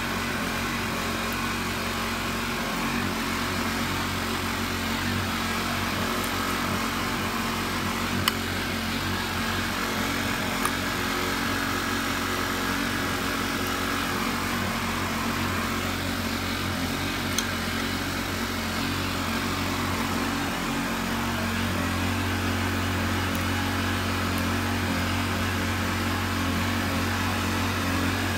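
A machine running with a steady low hum, its low drone growing stronger about two-thirds of the way through, with a few light clicks.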